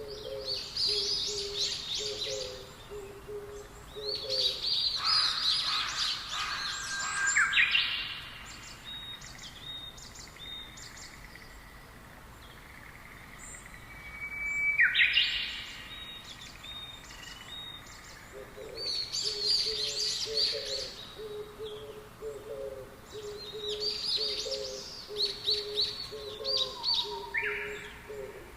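Wild birds chirping and singing in bursts of rapid high notes, one of them a quick downward swoop about halfway through. Beneath them a low call repeats in short, evenly spaced notes, at first and again from about two-thirds of the way through.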